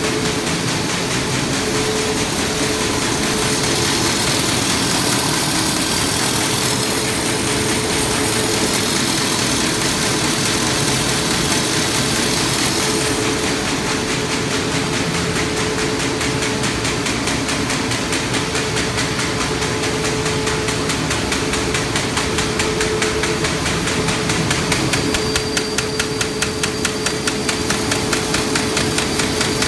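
A Heidelberg V-30 web offset press and the Oxy-Dry sheeter it feeds, running in production. Steady loud machine noise with a constant hum and a fast rhythmic clatter; a pulsing beat grows stronger in the last few seconds.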